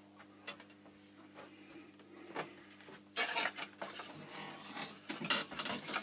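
Thin bent wooden ukulele sides being handled, knocking and rubbing against each other in a run of clattering knocks from about three seconds in, after a few faint clicks, over a faint steady hum.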